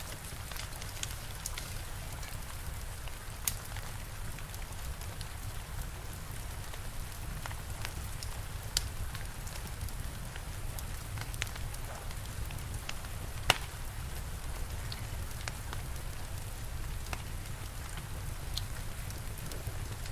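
Steady rain with a low rumble, broken by occasional sharp pops from a crackling wood fire.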